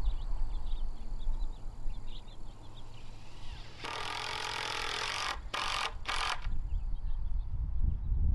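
Cordless drill running against a wooden fence post, driving a fastener: one run of about a second and a half, then two short bursts on the trigger. Birds chirp before it.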